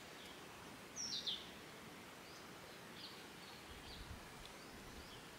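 Birds calling over a steady outdoor background hiss: one sharp, high call falling in pitch about a second in, then a few shorter, fainter chirps.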